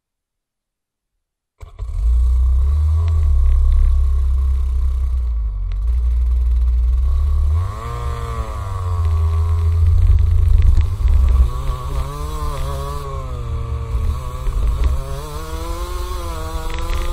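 Rotax two-stroke kart engine heard from on board, its pitch rising and falling as it revs up and drops through the corners, under a heavy low rumble from wind on the microphone. The sound cuts in suddenly after about a second and a half of silence.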